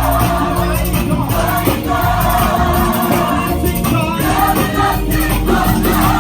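Gospel choir singing with a live band backing of drums, bass and keyboard.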